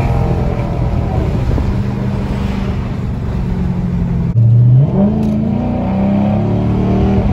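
5.7 Hemi V8 running steadily as the vehicle drives. About four seconds in the sound changes abruptly and the engine note climbs in pitch.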